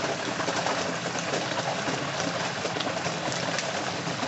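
Hot oil sizzling and bubbling hard around a whole turkey just lowered into a turkey-fryer pot, a steady crackle of many small pops as the bird's moisture boils off.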